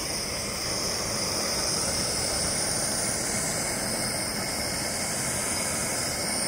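Handheld propane torch burning with a steady hiss, its flame singeing the fur off a squirrel carcass.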